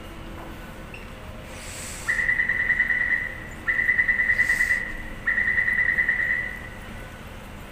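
Taipei Metro door-closing warning: three warbling high beeps in quick succession, each a little over a second long, the signal that the train doors are about to shut. A steady low station hum runs underneath.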